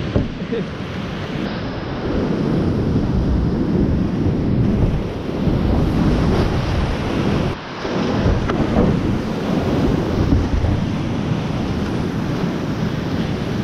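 Whitewater rushing over a steep rapid and waterfall drop, heard close up from a kayak-mounted GoPro, with water and wind hitting the microphone. The rush dips briefly about seven and a half seconds in.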